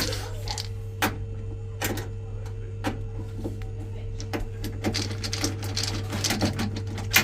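Clicks, taps and knocks of tools and metal casing as the front panel is taken off a Baxi gas boiler, over a steady hum. The knocks come roughly once a second, with a louder one near the end.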